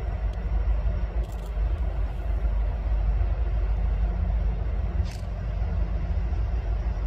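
Norfolk Southern diesel locomotives rumbling steadily as they approach, with a short hiss about five seconds in.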